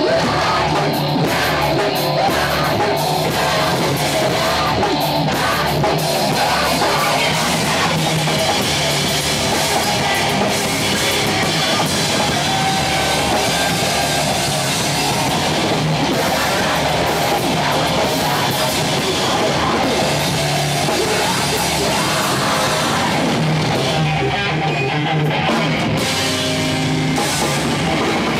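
A rock band playing live and loud: electric guitars over a drum kit.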